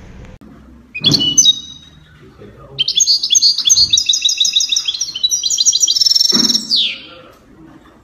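Small songbird singing a fast run of high twittering notes. A short burst comes about a second in, and the song ends in a falling sweep near the end.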